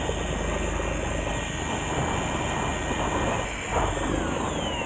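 Fishing boat's engine running with a steady drone, under wash and wind noise. A faint falling whine comes near the end.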